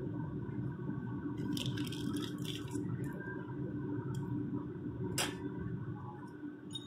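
Steady low hum of a bakery back room, with a brief rustle of the plastic piping bag being handled about a second and a half in and a single sharp click around five seconds.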